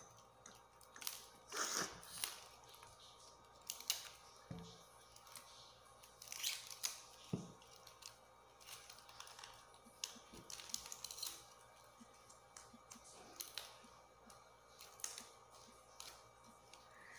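Small dry leaves being pulled and torn off the base of a pineapple crown, with a knife scraping at the base: a string of short, crisp tearing and crunching sounds at irregular intervals.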